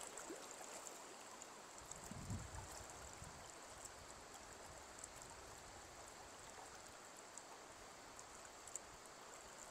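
Faint, steady rush of river water flowing. There is a soft low thump about two seconds in.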